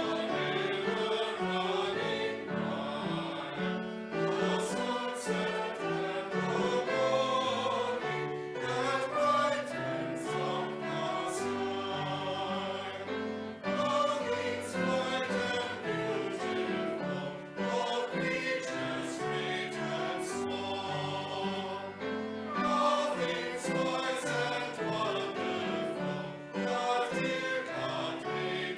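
A choir singing with instrumental accompaniment, in phrases a few seconds long over sustained low notes.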